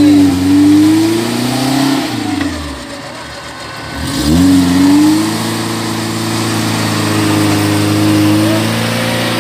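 Off-road 4x4's engine revving under load in mud. It revs up near the start and eases off after about two seconds, then revs up again at about four seconds and holds high for about five seconds.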